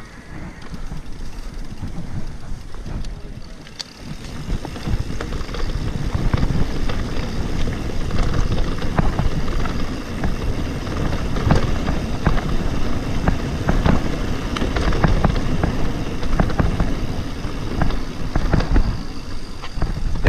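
E-mountain bike riding fast over a rough grass and gravel trail: tyres rumbling and the bike rattling and knocking over bumps, with wind on the microphone. It gets louder about four seconds in.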